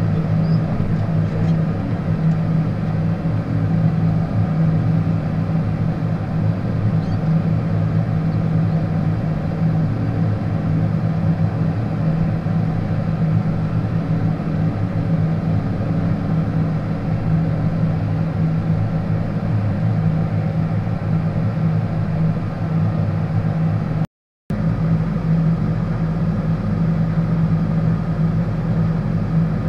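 John Deere tractor's diesel engine running steadily, heard from inside the closed cab. The sound cuts out for a moment near the end.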